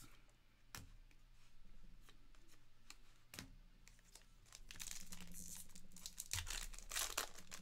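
Foil wrapper of a Panini Certified Football card pack being torn open and crinkled by hand, mostly in the second half. Before that, a few light clicks as cards are handled.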